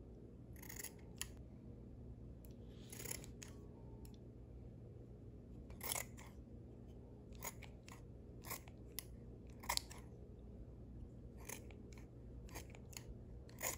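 Scissors snipping through the fingers of a slime-filled rubber glove: about a dozen short, sharp snips at irregular intervals, some wetter as the blades pass through the slime.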